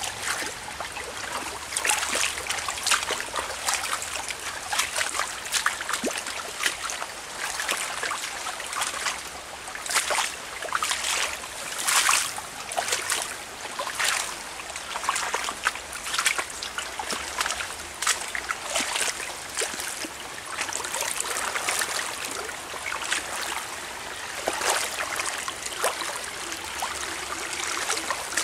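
Small shallow stream trickling over mud and stones. Many short, sharp splashes and knocks are scattered through it.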